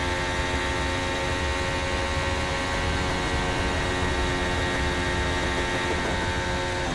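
Onboard sound of an AlphaTauri Formula 1 car's 1.6-litre turbocharged V6 hybrid engine, held at a steady high pitch at full throttle in top gear along the West straight and through 130R.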